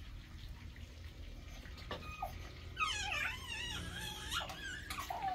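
Toddler whimpering: a wavering whine of about two seconds that rises and falls, starting about three seconds in, with short squeaky cries just before and after it.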